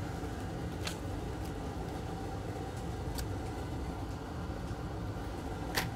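Steady low hum of workshop background noise, with a few faint clicks from a laptop being handled, the clearest one near the end.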